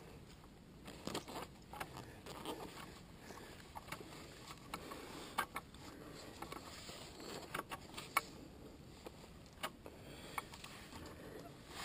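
Faint, irregular clicks and knocks over a low hiss, with no engine running.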